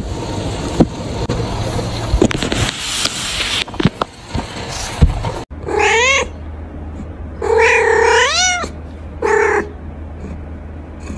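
Kitten meowing: three high-pitched mews, the middle one longest and rising at its end. Before them, scratchy rustling with sharp clicks for about the first half, which breaks off abruptly.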